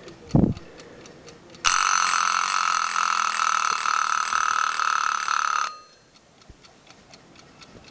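1950s Goldbühl mechanical alarm clock ticking, with a low thump just under half a second in. Its alarm then rings steadily for about four seconds and cuts off suddenly, and the faint ticking goes on.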